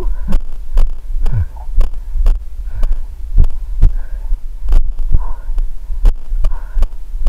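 A runner's footfalls thudding about twice a second, heard through a body-worn camera jolted by each step, over a steady deep rumble of wind and mic handling. Soft puffs of heavy breathing come roughly once a second.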